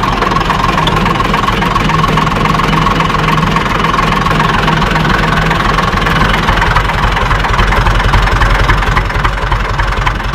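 Farm tractor's diesel engine idling steadily, heard close beside its upright exhaust stack.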